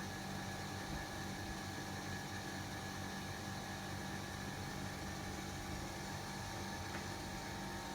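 28-inch Sivicom mini ceiling fan running steadily: a constant motor hum with a few higher steady tones over an even hiss.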